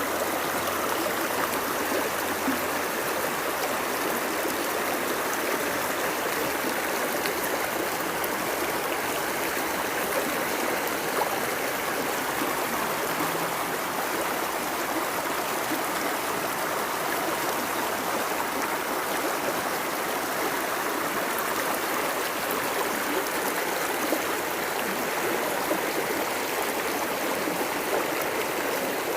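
A woodland river running steadily, full and fast after overnight rain, its flowing water rushing and gurgling.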